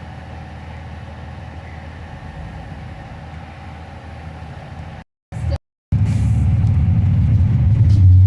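Steady low rumble of a freight train rolling past. About five seconds in the sound cuts out twice briefly, then a louder, deeper rumble follows.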